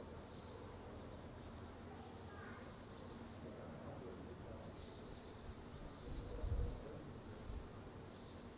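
Quiet outdoor village ambience with faint high chirps repeating every half second or so. A brief low rumble comes about six and a half seconds in.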